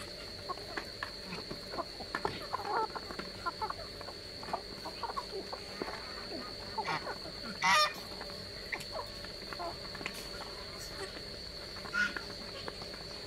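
A mixed flock of chickens, Muscovy ducks and geese feeding from a bowl of rice: many small pecking clicks of beaks and soft clucks, with one loud call a little before eight seconds in. A steady high-pitched whine runs underneath.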